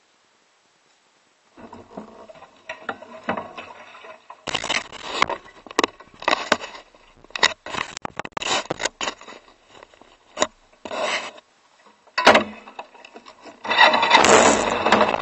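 Irregular scraping, rubbing and sharp knocks close to the microphone as the camera on a scooter is handled and shifted. Near the end the scooter's engine starts and keeps running steadily.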